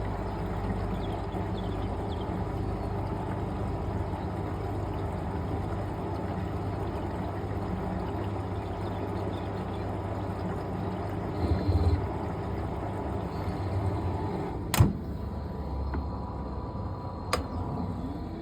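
Fisher & Paykel MW511 top-loading washing machine filling, a steady rush of water into the tub. Two sharp clicks come about 15 and 17 seconds in, and a hum rises at the very end.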